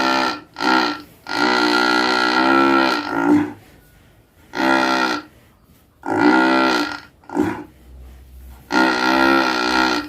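Large beef cow asleep and snoring: a series of about six loud, pitched, reedy snores, each a fraction of a second to two seconds long, with short pauses between them. The longest snore starts about a second in.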